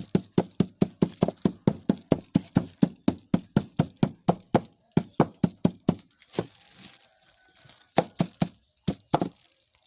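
Crushed turmeric being worked with a utensil: rapid, even knocks about four a second, slowing about six seconds in to a few scattered knocks.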